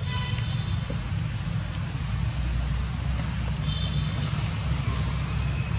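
A steady low rumble, with two brief high chirps, one at the start and one about four seconds in.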